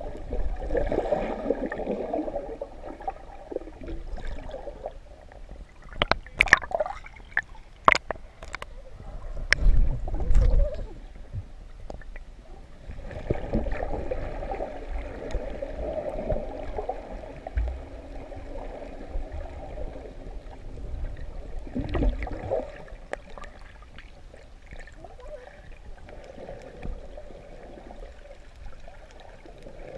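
Muffled gurgling and bubbling water heard through a camera held under water, with a run of sharp clicks and knocks about six to ten seconds in.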